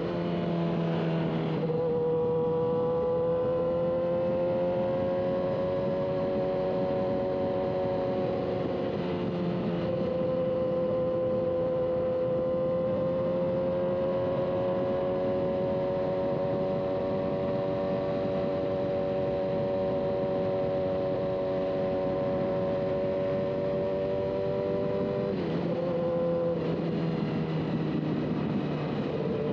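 Motorcycle engine running steadily on the road, heard from on board over a constant rush of noise. The engine note steps down about a second and a half in, then climbs slowly, and shifts up and down again near the end.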